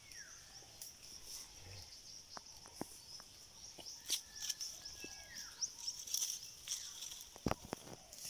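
Steady, fairly quiet insect buzzing with fast ticking, with a short falling bird chirp near the start and another about halfway. A few sharp snaps come near the end.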